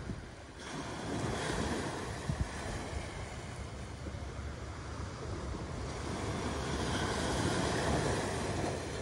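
Small waves breaking and washing up a sandy shore, swelling about a second in and again near the end, with wind rumbling on the microphone.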